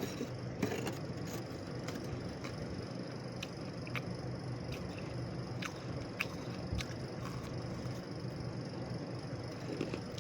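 Freezer frost being chewed, with sharp crunches scattered irregularly over a steady background hiss.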